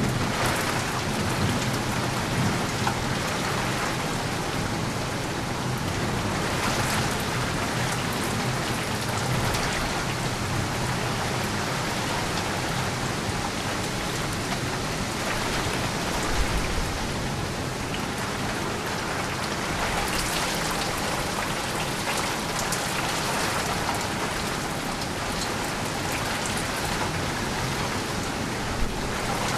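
Steady heavy rain falling and pattering on surfaces, with a low rumble of thunder dying away in the first second or two.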